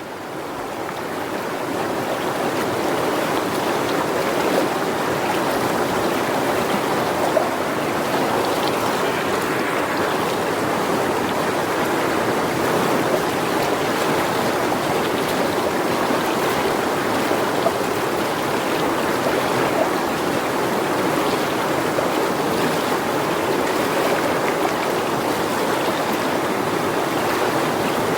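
River water rushing steadily, a stream swollen with rainy-season runoff from the forest; it fades up over the first two seconds and then holds an even level.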